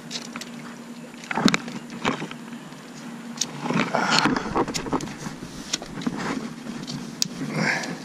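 Scattered sharp clicks and knocks with short rustling bursts, one about four seconds in and another near the end, from gear and hands being handled on rock, over a steady rush of wind on the microphone.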